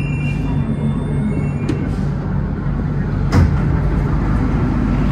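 Steady low rumble inside an Alstom NS-93 metro car, with a single sharp knock about three and a half seconds in.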